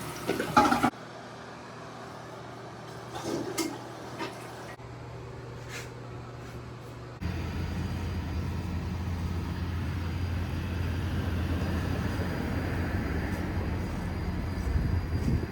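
Water rushing from a toilet, cut off after about a second; then a quieter steady hum with a few knocks, and from about seven seconds in the steady low rumble of a vehicle being driven.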